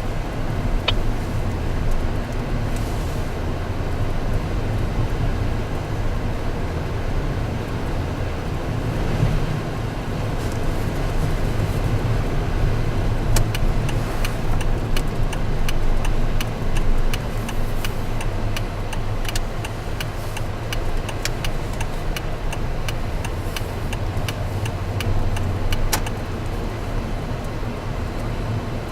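Steady low engine and road rumble heard from inside a moving car. From about halfway through to near the end, a run of quick, evenly spaced sharp clicks rides over it.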